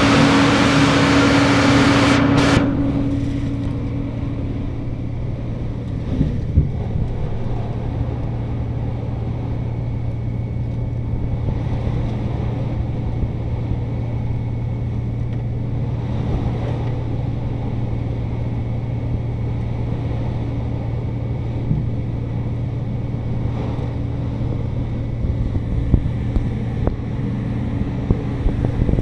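Vacuum truck running, its large suction hose drawing water and debris out of a CDS stormwater separator vault, with a steady low drone. A loud rushing hiss for the first two and a half seconds cuts off abruptly, and a few knocks from material passing through the hose come through now and then.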